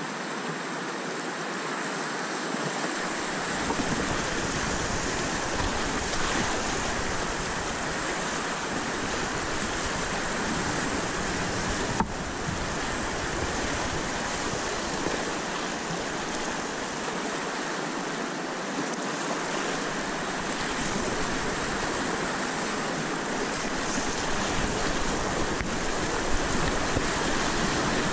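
River rapids rushing and churning right at the microphone, a steady loud rush of whitewater heard from water level. One sharp click about twelve seconds in.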